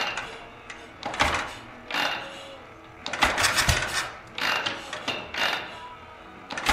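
Kick starter of a 1600cc S&S Shovelhead V-twin being kicked over repeatedly, about once a second: each kick gives a short rasping burst of the starter gears and the engine turning over, and the engine does not catch.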